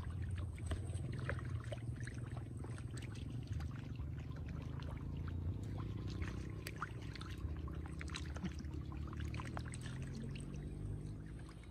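Water pouring and churning in a shallow muddy pool, with many small, quick splashes from crowded fish thrashing in it.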